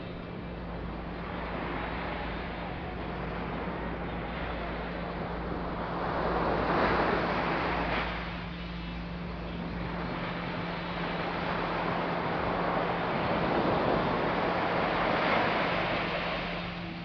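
Surf washing onto a sandy beach: a steady rush of sea that swells with a breaking wave about six seconds in and again, longer, from about eleven to sixteen seconds.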